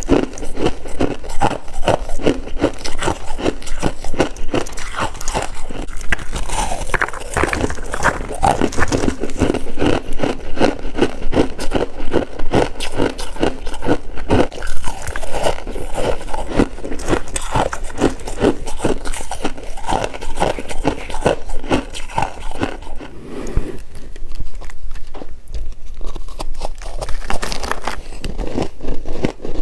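Close-up crunching of freezer frost being bitten and chewed: a dense, continuous run of crisp crackles and scrapes, easing off briefly about three-quarters of the way through.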